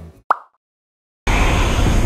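Acoustic guitar background music fading out, then a single short cartoon 'plop' pop sound effect marking a scene change. After a second of dead silence, a steady background noise of the surroundings cuts in suddenly.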